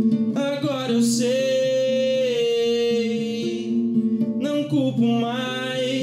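A man singing a slow melody, holding one long note, over a fingerpicked archtop acoustic guitar; a second sung phrase starts about four and a half seconds in.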